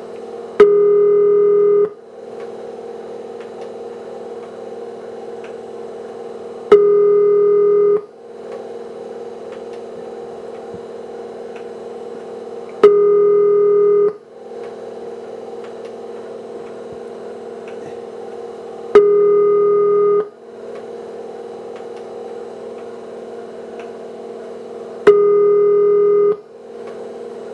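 Ringback tone from an old telephone central-office tone generator and interrupter: a buzzy tone sounds for about a second and a quarter, five times, about every six seconds, with a steady quieter hum between the bursts. It is the signal that tells the caller the called phone is ringing.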